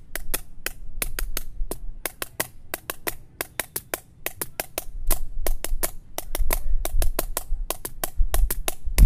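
Bundled-rod drumsticks tapping out a quick improvised rhythm of sharp clicks: one hand keeps a steady beat while the other fills in sixteenth-note syncopations. Dull low thumps join in from about five seconds in.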